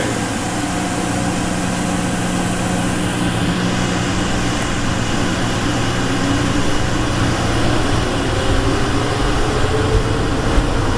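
Denver airport automated people-mover train running through its tunnel, heard from on board: a steady low hum with a motor whine rising in pitch over the second half as it picks up speed.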